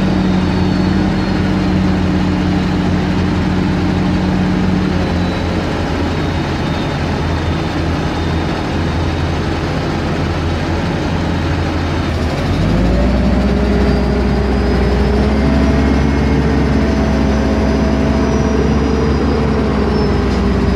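Terex mobile crane's diesel engine running steadily while the crane hoists its own counterweight slabs. The engine note drops about five seconds in, then revs up about twelve seconds in and holds higher and louder.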